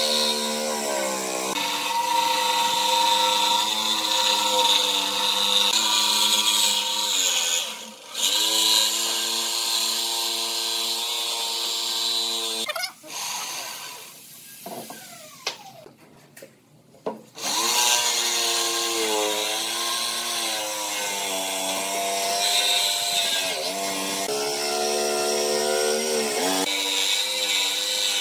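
Corded Dongcheng jigsaw running and cutting through a thick pine board, a steady motor whine whose pitch shifts as the blade loads in the curve. About halfway through it stops, winds down with a falling pitch, and starts cutting again a few seconds later.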